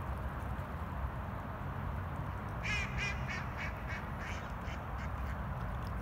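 White domestic duck quacking a quick run of about eight quacks, each fainter than the last, over a steady low background rumble.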